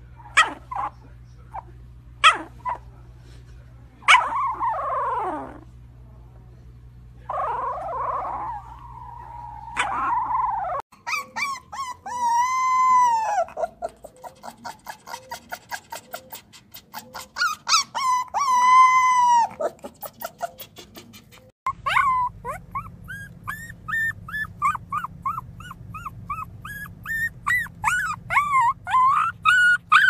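Puppy whining and crying: high whines that rise and fall in pitch, and runs of short, quickly repeated cries.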